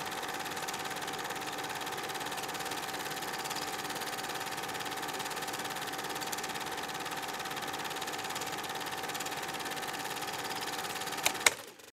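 A small machine running steadily: an even whir and hiss with a constant high hum. A sharp click comes near the end, and the sound then cuts off.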